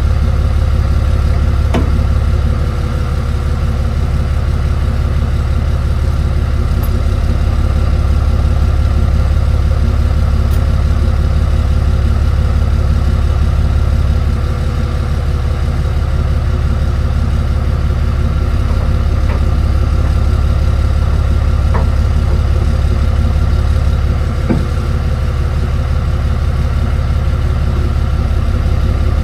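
A tow truck's engine idling steadily, with a few faint clicks and taps now and then.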